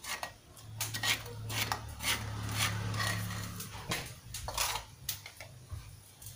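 A plastic spatula scraping and knocking ground spice paste out of a mortar into a plastic mixing bowl: a run of short scrapes and clicks. A low hum sounds underneath for a few seconds.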